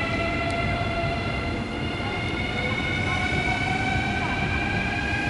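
CR400BF Fuxing-Hao high-speed train pulling out from the platform. Its traction motors whine in several tones that slowly rise in pitch as it gathers speed, over a steady low rumble of the moving cars.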